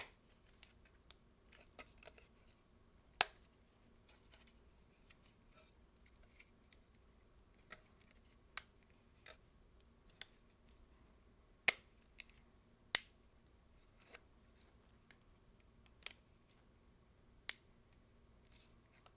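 Sharp plastic clicks and taps as a replacement LCD panel is pressed and snapped into the Sony a7S camera's plastic bezel. Irregular, with three louder snaps a few seconds in and around the middle among fainter ticks.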